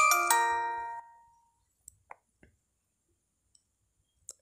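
A bright chime of three quick bell-like notes that ring out together and fade within about a second, followed by a few faint clicks.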